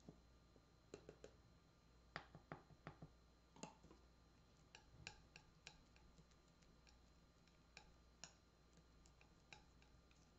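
Very quiet, scattered light clicks and taps of a palette knife against the palette plate as dark oil paint and cold wax are worked together. The clicks come in small clusters during the first four seconds, then more sparsely.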